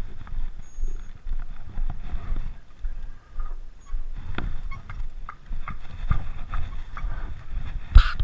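Low, gusty rumble with scattered knocks and clicks from a head-worn GoPro moving about; one louder knock comes near the end.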